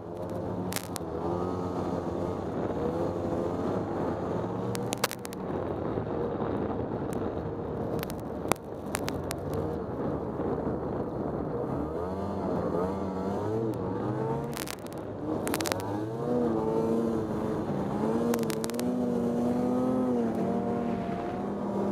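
Lynx Commander snowmobile engine running under load through deep powder snow, its pitch rising and falling with the throttle. Several sharp knocks sound along the way.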